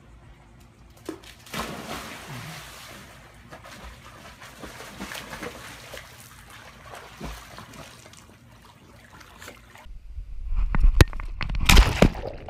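A yellow Labrador retriever leaps into a swimming pool with a splash about a second and a half in, then water sloshes as it swims. From about ten seconds in comes louder, sharp, irregular splashing and churning of water, heard close up from a camera strapped to the dog and dipping underwater.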